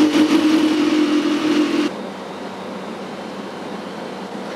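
A steady electric hum with a faint high whine, cutting off suddenly about two seconds in and leaving a low steady background hum.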